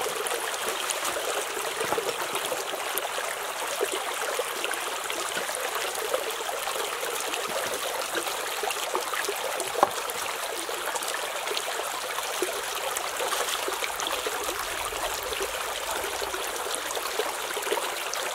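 Shallow rocky stream running steadily over stones, a continuous burble of moving water, with one brief sharp sound standing out about halfway through.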